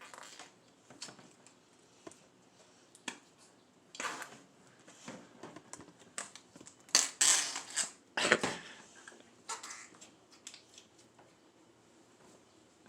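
Slime and small plastic toys being handled: scattered light clicks and squishing, rustling bursts. The loudest bursts come about seven and eight seconds in.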